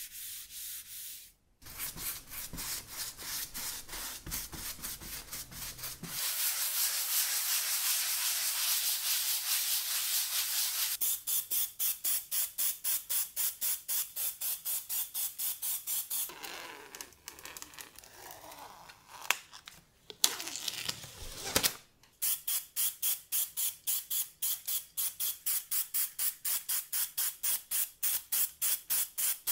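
Aerosol spray can of water-based paint hissing as it coats a hardboard game field: a steady hiss in places, and elsewhere long runs of quick, evenly spaced hisses, three or four a second. A few sharp clicks come around two-thirds of the way through.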